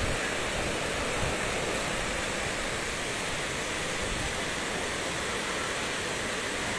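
Steady rush of a swollen, fast-flowing flooded river, mixed with strong typhoon wind.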